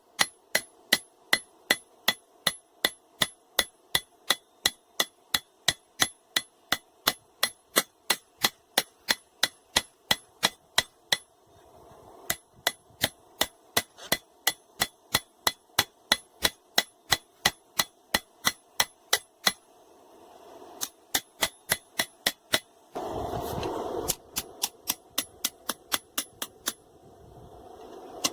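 Hand hammer striking hot steel on an anvil at about two blows a second, each blow ringing, forging the bevel and tip into a knife blade made from a wrench. The hammering breaks off briefly twice, and a short rushing noise sounds about two-thirds of the way through.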